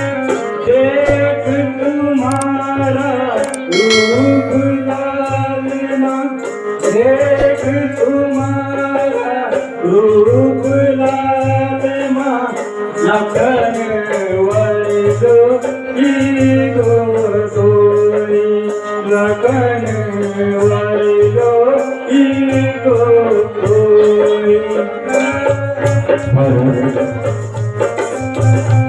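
Indian folk-style music: a wavering, sliding melody line over a pulsing bass note, with percussion and a shaker keeping a quick, even beat.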